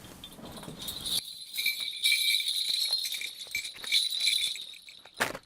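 Small metal bells jingling as they are shaken, a continuous shimmering ring from about a second in that fades out near the end: a Korean shaman's cluster of ritual bells (bangul).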